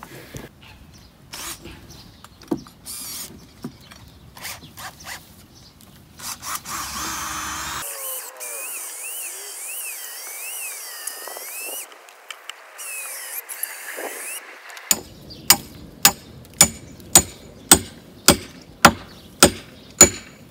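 Cordless drill running in short bursts while working on wooden poles, then a steady run of about ten sharp, evenly spaced blows, a little under two a second, in the last few seconds.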